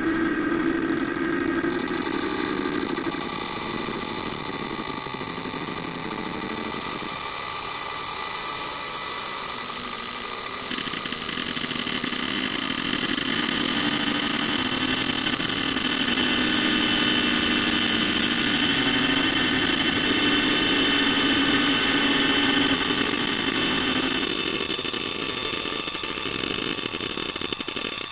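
Video soundtrack slowed down to an extreme degree, smeared into a steady drone of many held tones that sounds like an engine hum. The pitch pattern shifts abruptly every few seconds.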